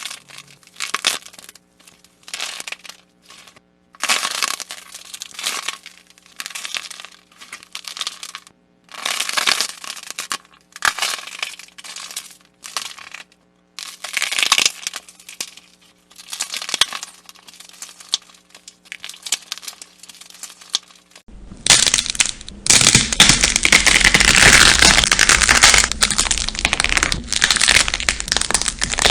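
Slime squeezed and pressed by hand, giving crackling, crunching sounds in repeated bursts with short pauses. About 21 seconds in, a denser, louder crackling sets in and runs on without pauses.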